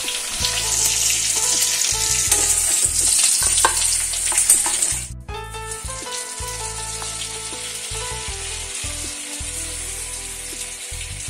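Minced-chicken patties sizzling as they shallow-fry in hot oil in a steel kadai. The sizzle is loud at first, drops sharply about five seconds in, and carries on quieter.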